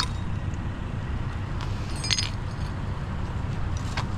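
A few clinks and knocks of hard objects being handled, the brightest cluster about two seconds in, over a steady low rumble.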